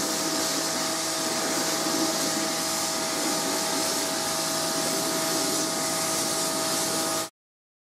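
Karcher X-Series 2000 psi electric pressure washer running and spraying: a steady water hiss over an even motor whine, cutting off suddenly near the end.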